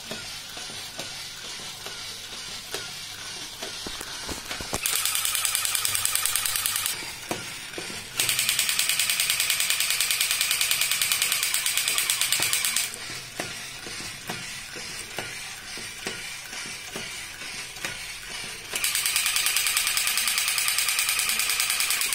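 Battery-operated crawling soldier toy (Batman figure with rifle): its small geared motor whirs and clicks as it crawls. Three times, from about five, eight and nineteen seconds in, its electronic machine-gun sound effect rattles loudly for a few seconds.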